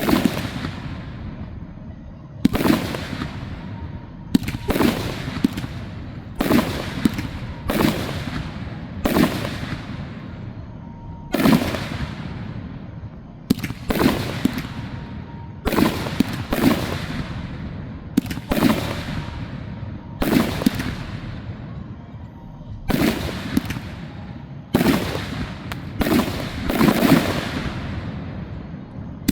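Aerial firework shells bursting one after another, each a sharp bang followed by a rolling echo, about every one to two seconds, sometimes two or three in quick succession.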